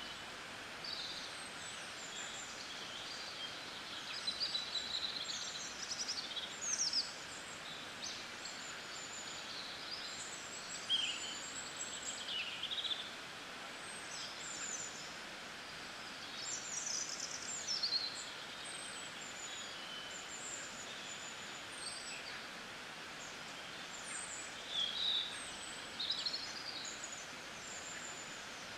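Birds chirping in short, high calls scattered over a steady hiss of rain.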